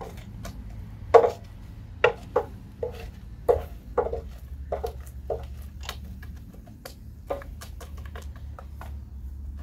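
Irregular clicks and crackles from the open wood fire under the grill, with several louder knocks and clinks of the long-handled grilling tool against the metal grill and skewers as the sausages are turned, mostly in the first half.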